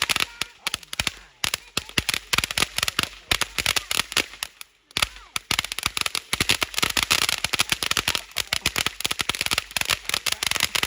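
Fireworks going off as rapid, dense strings of sharp pops and cracks, like a firecracker string, dying down briefly about halfway through and then starting again.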